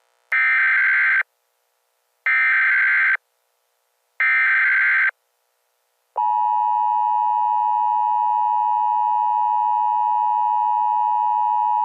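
Emergency Alert System SAME header: three harsh, buzzy data bursts of about a second each, two seconds apart. About six seconds in, the steady two-tone EAS attention signal starts, marking the start of a new alert.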